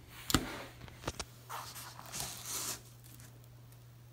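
Handling of a cloth-covered speaker grille board: a sharp click, two lighter taps about a second in, then a brief scraping rustle.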